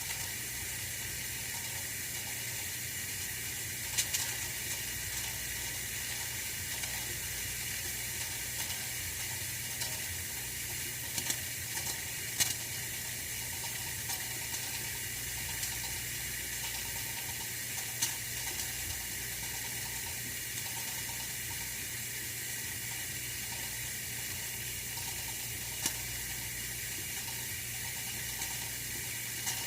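Oil-filled radiator heater running: a steady hiss over a faint low hum, with about five sharp ticks spaced several seconds apart.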